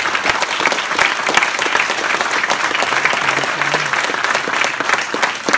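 Audience applauding loudly, a dense steady clapping from a large seated crowd.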